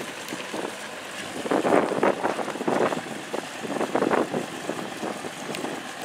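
Twin Evinrude E-TEC two-stroke outboard motors idling through warm-up, an uneven sound that swells and falls every second or so, with wind gusting on the microphone.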